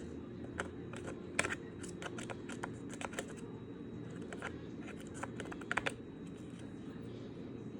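Scattered light clicks and taps, a few loud ones and a small cluster near the end, from handling and seating a DDR4 SODIMM laptop memory module into its slot. A steady low hum runs underneath.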